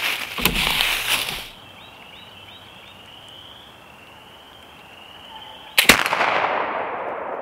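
A .54-calibre Kibler Woodsrunner flintlock rifle firing once, about six seconds in: a single sharp shot whose report fades away slowly through the woods. Before it, about a second and a half of rustling and handling noise, then a quiet stretch.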